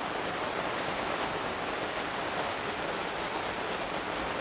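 Steady rain falling on a fabric gazebo canopy and the wet garden around it, an even hiss that holds level throughout.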